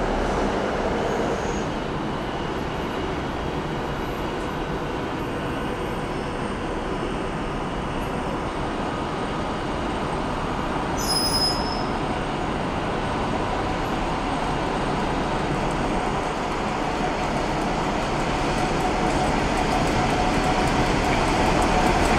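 Class 47 diesel-electric locomotive approaching at the head of a passenger train, a steady rumble that grows louder towards the end. A brief high squeak sounds about eleven seconds in.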